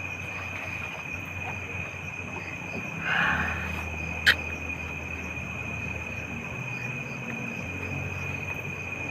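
Night insects, crickets, trilling steadily on one high pitch. A brief rustling hiss comes about three seconds in, and a single sharp click just after four seconds.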